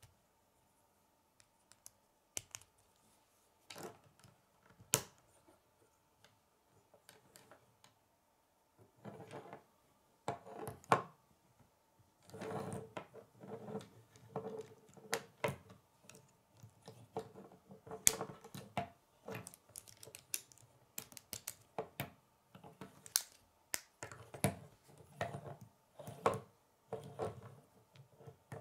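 Plastic K'nex rods and connectors being pressed and snapped together and handled: irregular sharp clicks and light rattling, sparse at first and much busier from about a third of the way in.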